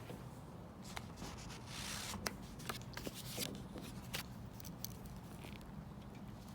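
Writing on paper: short spells of scratchy strokes with scattered small taps and clicks.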